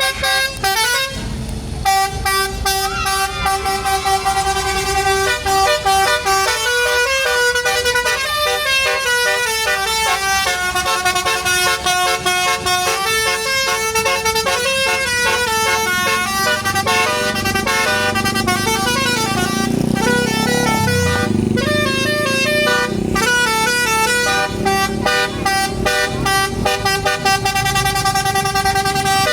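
Basuri telolet musical horn playing a fast tune of stepped horn notes, several tones sounding together. A low rising and falling rumble comes in briefly about two-thirds of the way through.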